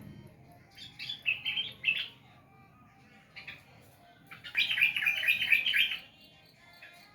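Yellow-vented bulbul (trucukan) singing: two bursts of rapid notes, each about one and a half seconds long, the second starting about four seconds in.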